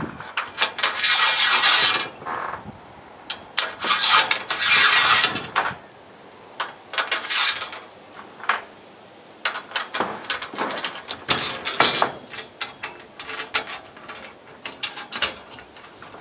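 Scraping and rubbing strokes, each a second or two long, with scattered sharp clicks and knocks: hand work fitting solar-panel mounting rails.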